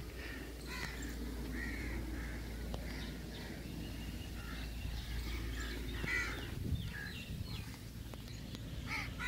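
Crows cawing now and then, over a steady low background rumble.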